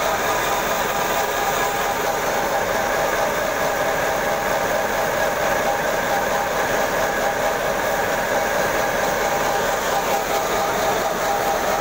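Paddy threshing machine running steadily while it threshes rice, a loud, unchanging machine noise with a constant hum in it.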